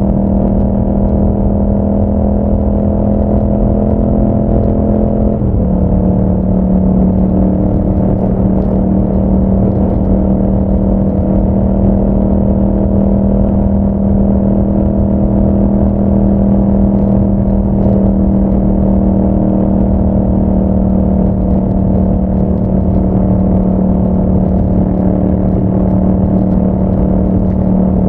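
2021 Yamaha MT-07's 689 cc parallel-twin with an Akrapovic exhaust, running steadily under way. The engine note drops a step about five seconds in, then holds steady.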